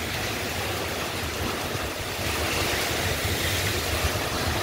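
Heavy rain and strong wind in a thunderstorm: a steady rushing hiss, with gusts rumbling on the microphone, getting a little louder about halfway through.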